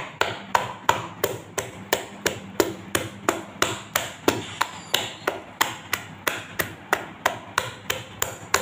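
A hand beating a runny flour-and-water batter for regag bread in a plastic bowl: a steady run of wet slaps, about three a second.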